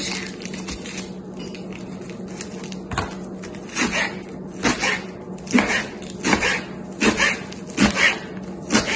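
Kitchen knife slicing through bunched spinach leaves on a cutting board. About eight strokes start about three seconds in, a little under one a second, each ending in a knock of the blade on the board. A steady low hum runs underneath.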